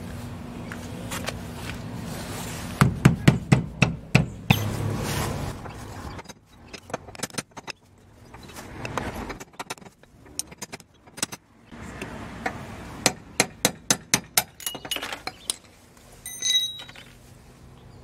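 Hammer blows on a metal drift rod, tapping a new metal dust cap onto a 1997 Honda Civic rear wheel hub: several bursts of sharp metallic taps in quick succession. A short metallic ring sounds near the end.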